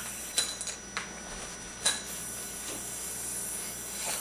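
Three light, sharp clicks, about a second apart, over a faint steady hiss.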